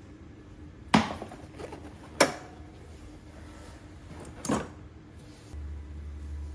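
Three sharp knocks of hard objects, spaced about a second or two apart, then a low steady hum starts about five and a half seconds in.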